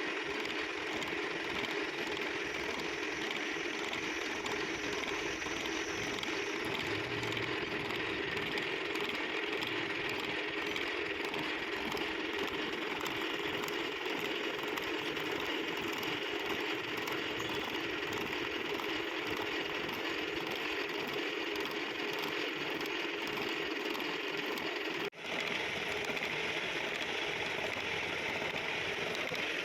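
Machine tool running steadily while cutting a worm-shaft thread: a continuous mechanical whir at an even level. It drops out for an instant about 25 seconds in.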